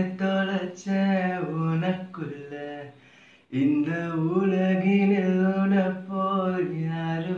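A man singing solo and unaccompanied, holding drawn-out notes that bend in pitch, with a break for breath about three seconds in before he sings on.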